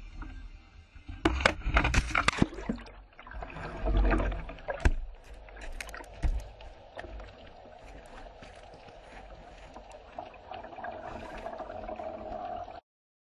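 River water sloshing and gurgling against a kayak, with a cluster of knocks and splashes in the first few seconds, then a steadier rush of water that cuts off suddenly near the end.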